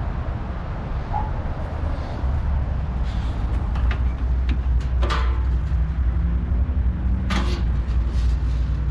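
Steady low rumble, with two sharp knocks about five and seven seconds in from junk being handled at the pile.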